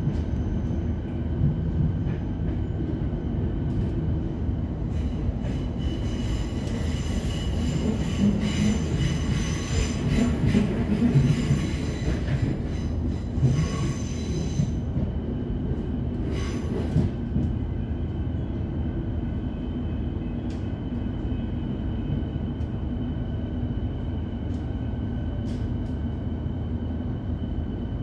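Melbourne Metro electric suburban train running with a steady rumble, heard from inside the carriage, with a high-pitched metallic squeal of wheels or brakes from about five to fifteen seconds in as it arrives at the Sandringham terminus.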